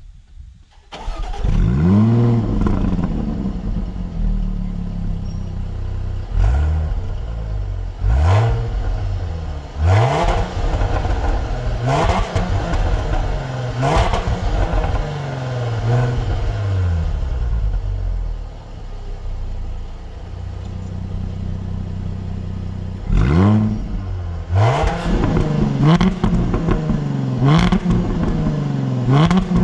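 Sports car engine at full throttle, revving up through the gears with a sharp crack at each upshift, about every two seconds. It eases off to a steadier drone partway through, then pulls hard again through several quicker shifts.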